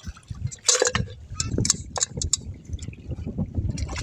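Shallow water splashing and sloshing in short, irregular splashes, the loudest about a second in.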